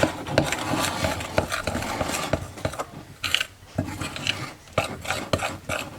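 A utensil stirring thick powdered-sugar and lemon-juice icing in an old Pyrex glass bowl, scraping and clicking against the glass. It scrapes without a break for about three seconds, then goes on in separate strokes. The icing is too thick and needs more liquid.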